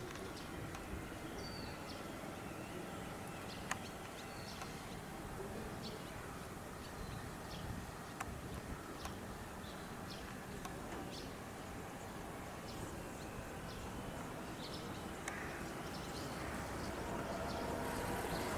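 Outdoor background noise with scattered short, high bird chirps and a couple of sharp clicks; the general noise grows louder near the end.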